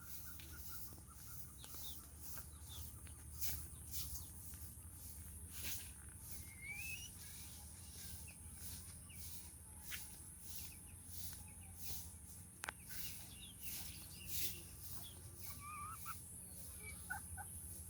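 Birds chirping in short scattered calls over a steady high hiss and a low hum, with faint repeated clicks throughout.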